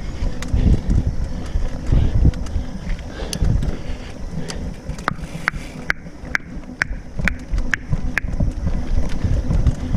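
Mountain bike riding a rough, steep dirt trail, heard on the bike camera's microphone: uneven wind buffeting and knocks from the bike over the ground, with a run of sharp clicks, about two a second, midway through.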